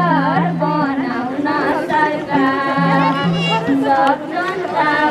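Nepali Sangini folk song: a high, ornamented sung melody with quick wavering turns, over low held accompaniment notes that step between two pitches.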